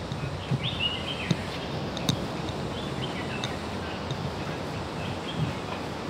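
Birds chirping a few times over a steady outdoor background hiss, the clearest call about a second in, with a few brief taps.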